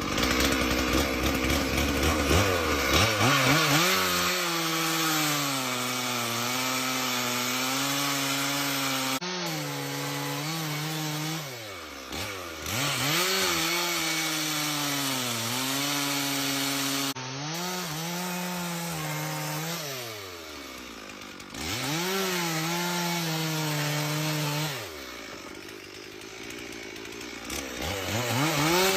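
Two-stroke chainsaw running at high revs while cutting wood. Its pitch drops three times as the throttle eases off, then climbs back up as it revs into the cut again.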